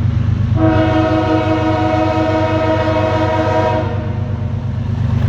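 Nathan K5H five-chime locomotive air horn sounding one long blast of about three seconds, over the steady low rumble of the diesel freight train.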